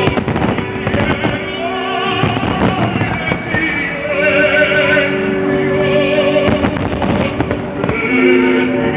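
Fireworks bursting and crackling in several clusters, over music with long held notes.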